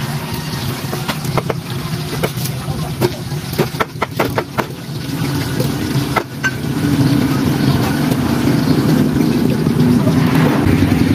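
A knife knocking on a wooden chopping board while cutting up an eel, a run of short sharp knocks in the middle. Under it a motor engine runs steadily, getting louder from about seven seconds in and becoming the loudest sound.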